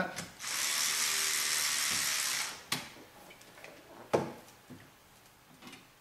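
Cordless electric screwdriver running for about two seconds, backing out a spring-loaded CPU heatsink screw, which makes a clicking noise as it comes off. A few separate light clicks follow, with one sharper knock about four seconds in.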